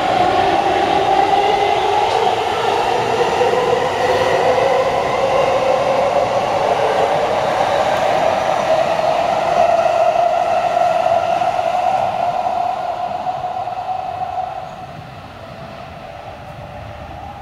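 Red Keikyu electric commuter train departing and accelerating past. Its traction motors whine in several tones that climb slowly in pitch, over the rumble of the wheels. The sound drops away about 14 seconds in as the train pulls clear.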